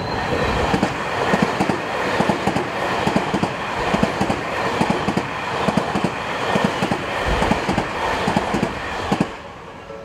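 An electric commuter train passing a level crossing at close range. Its wheels clack rapidly over the rail joints and the crossing. The sound drops away suddenly about nine seconds in, as the last car clears.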